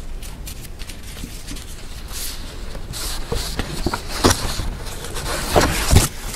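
Paper sheets being handled and slid across a desk: rustling and scraping with scattered small clicks, busier from about three seconds in, with a few louder knocks and crinkles around four seconds and again near the end.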